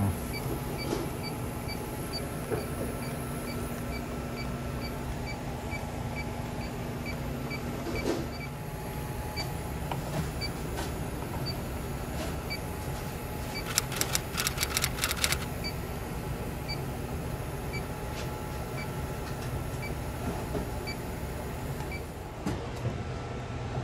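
A handheld electronic refrigerant leak detector ticking steadily, a little more than twice a second, while it searches a low-charged R404A freezer system for a leak. Under it runs a steady machine hum. About halfway through there is a brief burst of rapid clicking.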